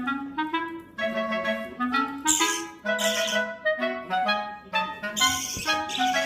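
Instrumental background music: a wind-instrument melody over a moving bass line.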